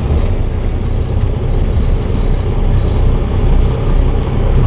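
Engine sound effect of a cartoon off-road buggy driving: a steady, rough low rumble.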